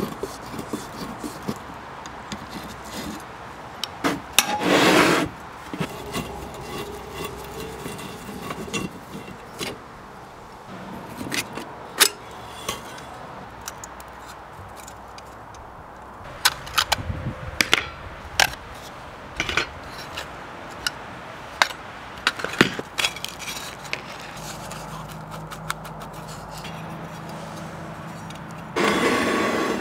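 Rusty metal parts of a Beatrice No.33 paraffin stove clinking, knocking and scraping as the stove is taken apart by hand. There is a longer, louder scrape about five seconds in and another near the end.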